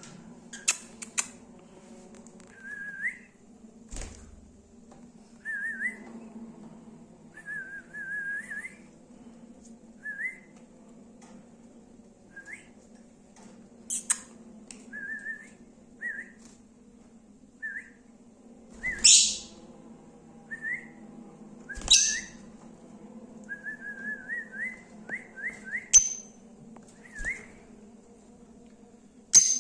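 Lovebirds chirping: short rising whistled notes repeated every second or two, broken by louder, sharp high-pitched calls several times, over a faint steady low hum.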